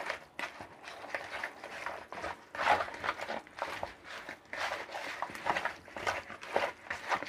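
Hands mixing raw chicken pieces in a spice and mustard-oil marinade in a plastic bowl, in a run of irregular wet rubbing noises and small clicks.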